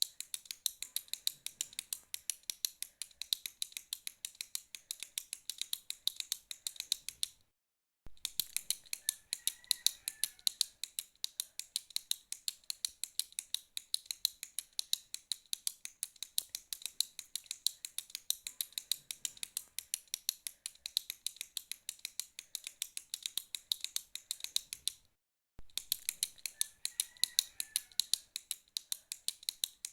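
Retractable ballpoint pen clicked over and over, a quick run of sharp clicks about four a second, broken twice by a moment of total silence.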